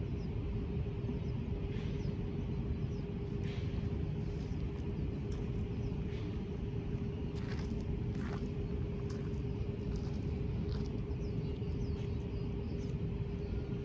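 Steady low rumble with a constant mid-pitched hum, and a few short high chirps scattered through it.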